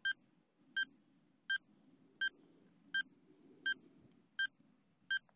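Countdown timer sound effect beeping: eight short, identical electronic beeps, evenly spaced a little faster than one a second, marking the seconds of a quiz countdown.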